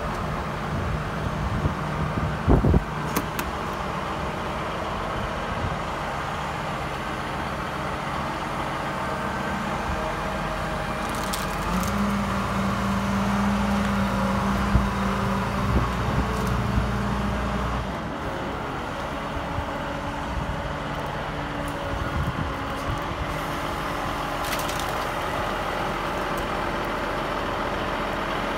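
Cummins diesel engine of a Dresser 520C wheel loader running while the machine works, its note rising and strengthening for several seconds a third of the way in, then settling back. A few sharp knocks come through over it.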